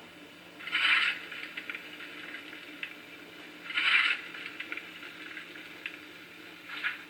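Sound decoder of a Tillig TT-scale BR 56 (G 8.2) steam locomotive model giving three short steam hisses about three seconds apart, each trailed by a few small crackles, over a faint steady hum.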